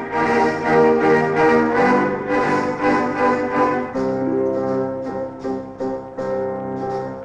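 Instrumental dance music: sustained melody tones over a steady beat of short percussion strokes, about two or three a second.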